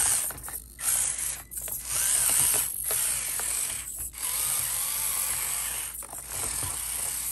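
Drivetrain of a Basher Rocksta 1/24-scale mini rock crawler whirring and grinding as it crawls over rock. The sound cuts out briefly about five times and comes back. It makes a lot of noise crawling, which the owner thinks may be a gear mesh issue.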